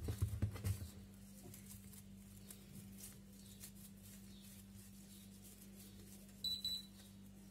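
Hands working soft dough into small balls on a countertop: a few soft thuds and taps in the first second. After that only a steady low hum remains, with a brief high chirping tone of a few quick pulses near the end.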